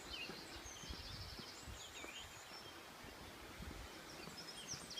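Faint songbirds singing, with rapid repeated trills and short chirps, over a low, uneven rumble of wind on the microphone.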